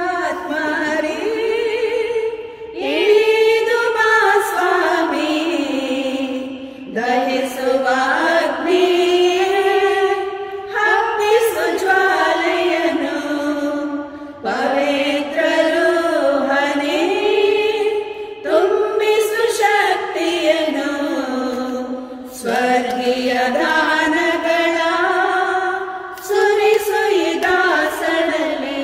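A choir of women religious sings a hymn in Kannada. The phrases run about four seconds each, with short breaks between them.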